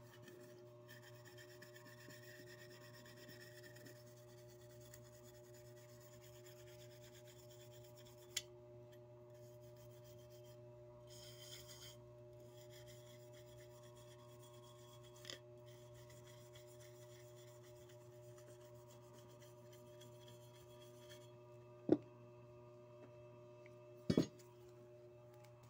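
Toothbrush bristles scrubbing metal polish over a metal belt buckle, a faint scratchy rubbing that stops about three-quarters of the way through, over a steady low hum. A few sharp knocks, the loudest two near the end.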